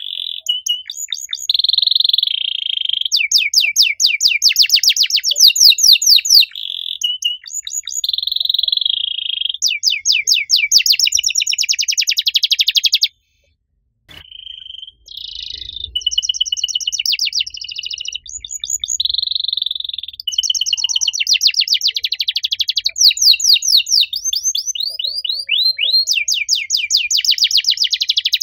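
Domestic canary singing a long song of fast trills and rolling warbled phrases, broken once by a moment of silence a little before halfway.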